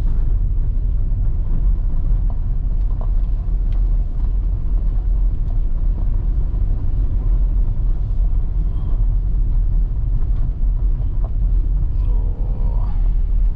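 Van driving slowly along a dirt and gravel track, heard from inside the cabin: a steady low rumble of engine and tyres.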